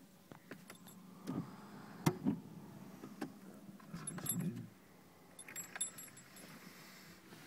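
A sleeping person snoring in irregular snorts, the loudest about two seconds in and again around four to four and a half seconds in, over a steady low hum.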